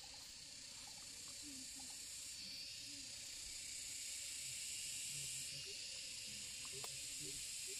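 A steady, high-pitched chorus of insects buzzing, its pitch shifting a couple of times as different callers start and stop.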